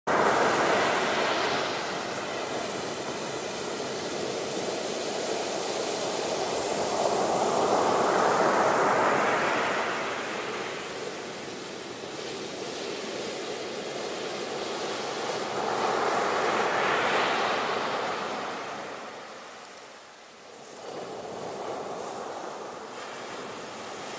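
Ocean waves breaking and washing over the shore: a rushing surf that swells three times, about eight seconds apart, and dies down briefly near the end.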